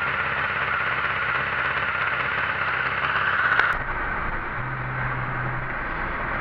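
Honda CBR600 four-cylinder motorcycle engine, swapped into a go-kart, running steadily at idle; it cuts off abruptly with a click about three and a half seconds in, replaced by a duller, steady low hum.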